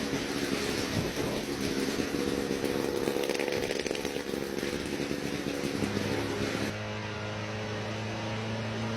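Engine of a homebuilt plane-helicopter running steadily and loudly; about seven seconds in, the sound changes to a steadier, lower hum with less hiss.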